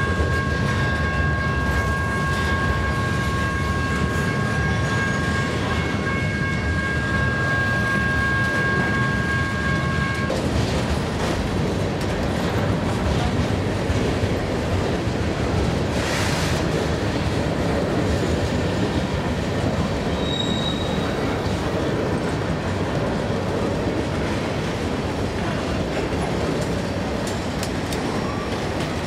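Freight train rolling past at close range, a continuous rumble of wheels on rail. A steady high squeal runs through the first ten seconds and stops suddenly, and a brief hiss comes about sixteen seconds in.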